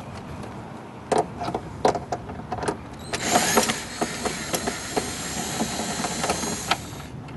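A few clicks and knocks, then a cordless drill-driver runs steadily for about four seconds and stops near the end, backing out a screw from under a scooter's plastic front nose.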